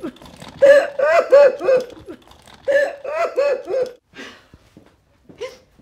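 A woman's wordless voice in two runs of short, rhythmic, high-pitched vocal pulses, about four a second, followed by a couple of fainter ones near the end.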